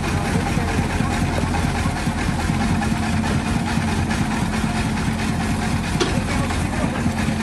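Hyundai mini excavator's diesel engine running steadily as the machine digs soil and lifts a loaded bucket.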